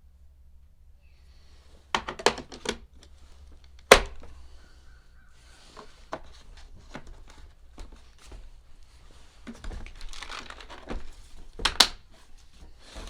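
Hands working on the plastic parts of a Stihl BR800C backpack blower with a small ratchet driver during assembly: irregular clicks and knocks with some rustling, and one sharp knock about four seconds in.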